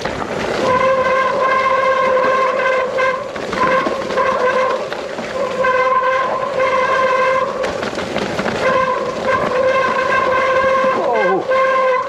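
Mountain bike disc brakes howling with a steady, fixed pitch that comes and goes in stretches of a second or more as the brakes are applied and released, over rough tyre and wind noise on a loose trail descent.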